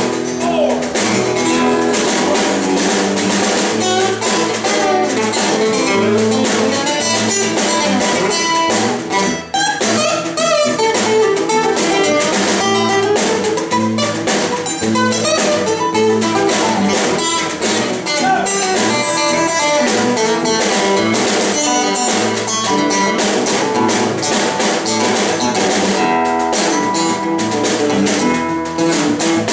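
Acoustic guitars playing an instrumental break in a live country song: strummed chords with a quick, picked run of single notes over them.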